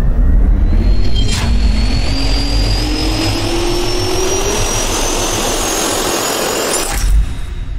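Jet-turbine spool-up sound effect: a deep rumble under a whine that rises slowly in pitch, with a sharp hit about a second and a half in and another near the end, after which it fades away.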